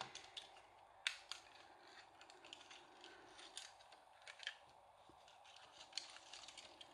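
Faint handling noise: a wire fairy-light string and its plastic battery box being wound around a wire frame, giving a few light clicks and rustles, the clearest about a second in.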